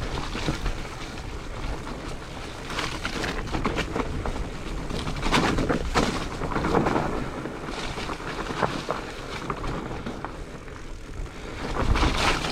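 Mountain bike rolling down a rough, wet trail: tyre noise with irregular knocks and rattles from the bike, and wind rumbling on the camera microphone.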